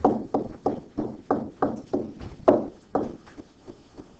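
Pen stylus tapping and scraping on a tablet screen in quick handwriting strokes, about three a second, with one louder stroke about two and a half seconds in; the strokes turn to faint ticks near the end.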